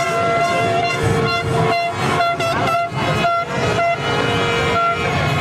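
Many horns tooting at once, long overlapping held notes at several different pitches, with a run of short sharp bangs in the middle.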